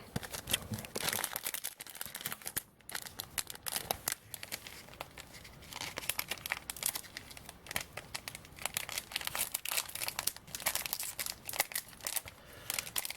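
A trading card pack's wrapper being torn open and crinkled by hand, a dense run of irregular crackles and rips.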